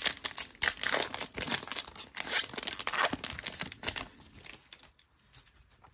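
Foil trading-card pack wrapper being torn open and crinkled by hand, a dense run of crinkling that dies away about four and a half seconds in.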